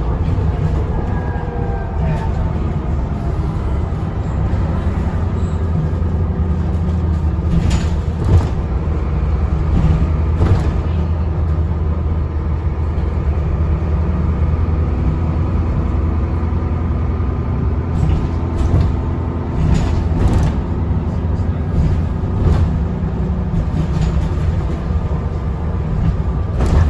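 Interior of a Dennis Trident double-decker bus on the move: the diesel engine and driveline run steadily under the floor, with occasional sharp knocks and rattles from the body and fittings.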